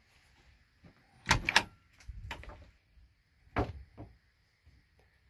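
A truck camper's sliding bathroom door being handled and slid open: a loud double clack about a second and a half in, a few softer rattles, and another sharp knock about three and a half seconds in.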